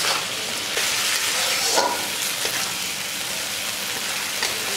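Chopped onion and ginger paste frying in hot oil in a pan: a steady sizzle with a spatula stirring and scraping through it. The sizzle swells for about a second, a second in.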